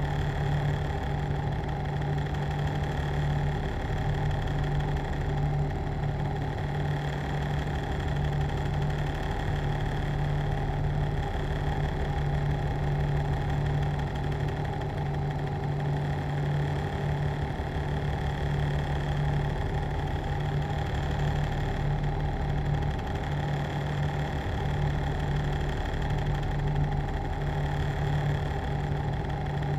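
Machinery running steadily: a continuous drone with a strong low hum and several fainter steady tones above it, unchanging in level.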